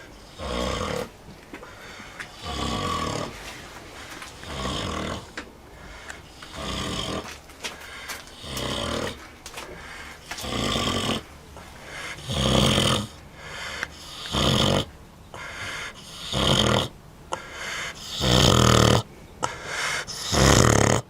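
Vietnamese pot-bellied sow snoring in deep sleep, one snore about every two seconds, the snores growing louder in the second half.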